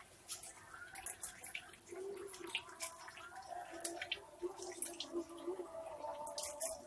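A crowded shoal of four-week-old catfish fingerlings splashing at the water surface as they feed, with many small, sharp, irregular splashes and drips.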